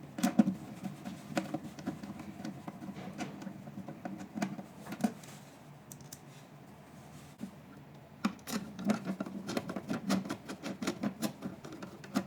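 Irregular clicks, taps and light scraping from handling screws and a bracket on the machine's housing, as the laser-pad bracket is fastened on. The clicks come in clusters, a flurry at the start and a denser run over the last four seconds.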